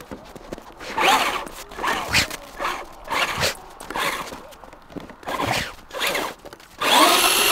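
Traxxas RC truck's electric motor revved in short throttle blips about once a second, each a brief whine rising and falling in pitch with the tyres scrabbling in the snow, and a longer, louder rev near the end.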